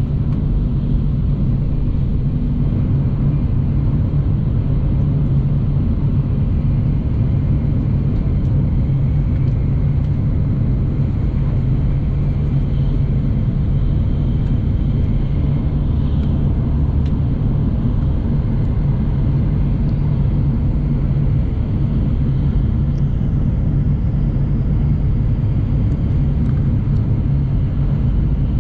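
Shinkansen bullet train running at speed, heard from inside the passenger cabin: a loud, steady low rumble.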